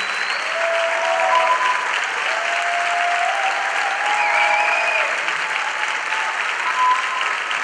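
Theatre audience applauding steadily for a curtain call, with a few voices calling out over the clapping.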